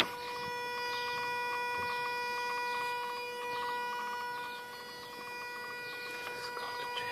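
Steady high-pitched electrical whine with overtones from a Mazda RX-8, with a fast run of clicks over its first three seconds. It is a strange noise that the owner cannot place and wonders whether it comes from an electric pump.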